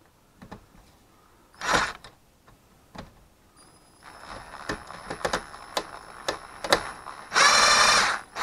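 Hitachi 18-volt cordless driver running in short bursts as it backs out the screws holding an old greenhouse inflation blower, with clicks of the bit and hardware in between. There is a brief burst about two seconds in, and the longest, loudest whirr comes near the end.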